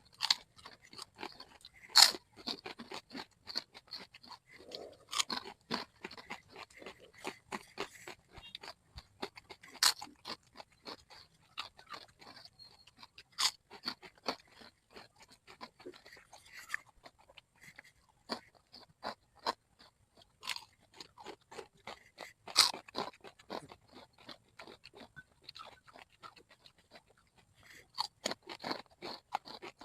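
Chicharon (deep-fried pork rind) being bitten and chewed up close: a steady run of irregular crisp crunches, with a few louder, sharper bites scattered through.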